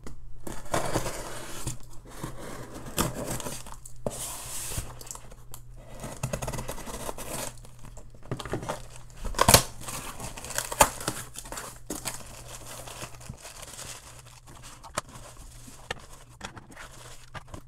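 A cardboard shipping box being opened by hand: tape and cardboard tearing, then plastic bubble wrap crinkling as the packing is pulled out. Irregular rustling throughout, with a few sharp clicks, the loudest about nine and a half seconds in.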